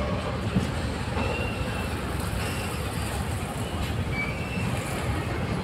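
Freight train's covered goods wagons rolling past: a steady rumble of wheels on rail, with a few brief faint wheel squeals.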